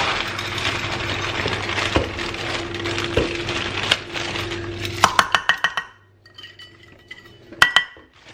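Kitchen clatter: corn being tipped into the pot with a steady rustling pour, then a quick run of clicks and a single sharp clink of dishware near the end.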